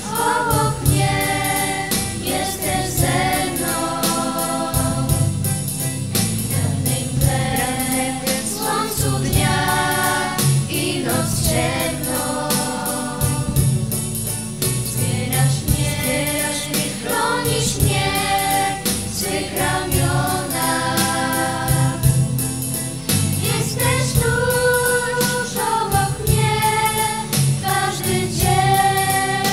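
Voices singing a song over instrumental backing with a steady beat.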